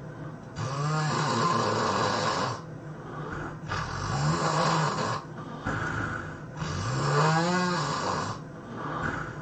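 A person snoring heavily: three long, loud snores about three seconds apart, each with a low pitch that rises and then falls, with quieter breaths between them.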